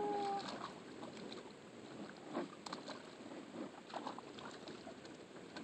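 Puppy wading and paddling in shallow water in a plastic kiddie pool: small, irregular splashes and sloshes. A brief whine-like tone right at the start is the loudest sound.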